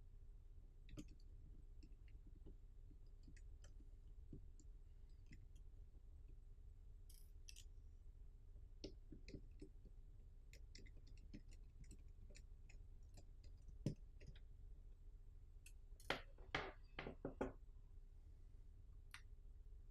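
Faint, scattered small clicks and ticks of a tiny Phillips screwdriver working the screws out of the back of a Yi 4K action camera's image-sensor board, with a short run of louder clicks and taps about three-quarters of the way through.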